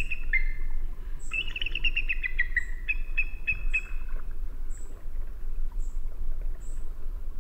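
Bald eagle calling: rapid series of high chittering notes that fall in pitch through the first half, then only short faint high peeps about once a second, over a low rumble.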